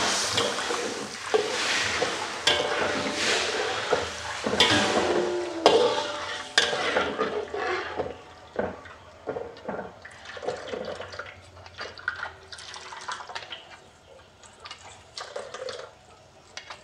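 Metal spatula stirring and scraping in a wok while coconut milk is poured in and frying spice paste sizzles under it. The sound is louder in the first half and softens to lighter scrapes and clicks after that.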